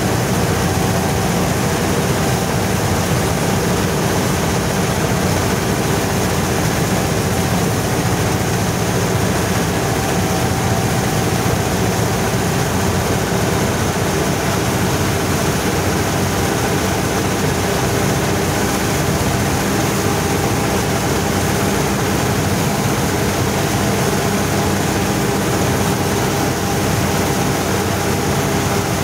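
Władimirec T-25 tractor's two-cylinder air-cooled diesel running steadily under load as it pulls a trailed Bizon Z020 combine harvesting wheat. The combine's PTO-driven reel, cutter bar and threshing drum run with it, giving one loud, constant machine din with a steady hum through it.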